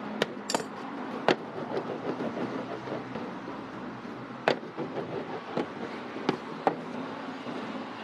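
Wooden rolling pin working dough on a floured steel worktable, with a handful of sharp knocks as the pin or hands strike the metal. A steady background hum runs underneath.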